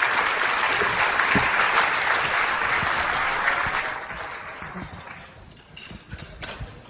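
Audience applauding, holding steady and then dying away about four to five seconds in, leaving a few scattered light knocks.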